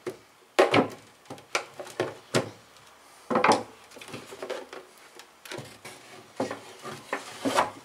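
Plastic clicking, knocking and scraping as a screwdriver pries the clip of a Lorenzetti Jet Turbo electric shower's plastic cover, and the cover is worked loose and lifted off. The loudest knock comes about three and a half seconds in.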